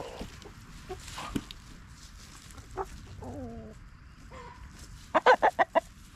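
Chickens clucking: scattered short clucks and one drawn-out call, then a quick run of about six loud clucks near the end.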